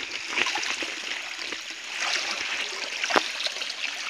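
Shallow stream running and trickling over rocks, with a few short sharp sounds from movement in the water, the loudest about three seconds in.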